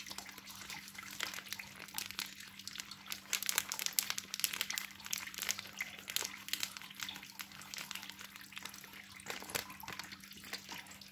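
Foil-lined plastic packet crinkling and rustling in the hand as seasoned flour is shaken out of it into a glass bowl, giving many small crackles, with a steady low hum underneath.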